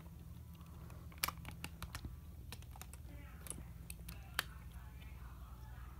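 Faint, scattered light clicks and taps of hard plastic being handled, over a low steady hum.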